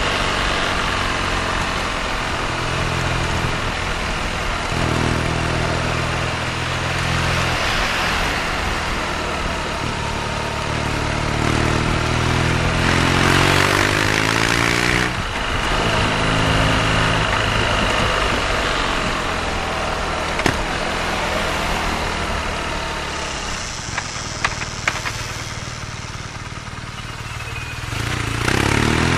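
BMW R nineT's boxer twin engine under way in town, pulling up through the revs several times with steadier stretches of cruising and idling between. A rush of wind noise comes in around the middle, and a few sharp clicks sound near the end.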